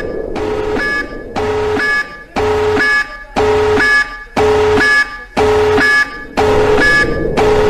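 Emergency alert alarm tone: a loud electronic beep, a low and a high tone together, repeating about once a second with short gaps between beeps.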